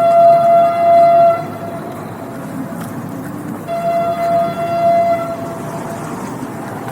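Train horn blowing two steady single-pitch blasts, one at the start lasting under a second and a half and another about halfway through, over the continuous rumble of the moving train.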